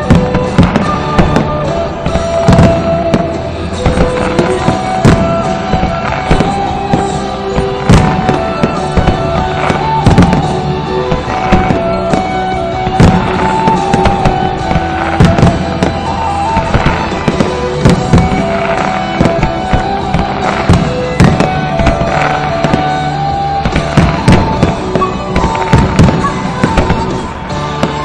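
Fireworks display with many shells bursting in quick succession, several bangs a second, over continuous music.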